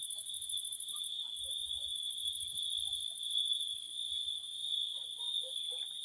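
Night chorus of crickets chirping: a steady, shrill, unbroken trill, with a second, higher, finely pulsing trill above it that breaks off briefly about a second in.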